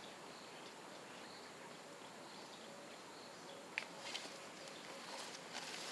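Faint bush ambience: a steady hiss with a faint, repeating high chirp, then a few sharp clicks or snaps, the loudest just before four seconds in.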